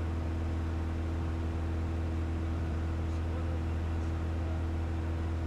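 Steady engine and propeller drone of a Piper PA-28-181 Archer II in level cruise, heard in the cabin: a constant low hum with a few steady tones above it and an even hiss, unchanging throughout.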